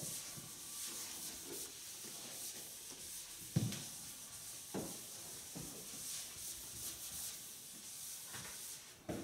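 Chalkboard eraser wiped back and forth across a chalkboard, a steady hissing swish, with two soft knocks a little past the middle.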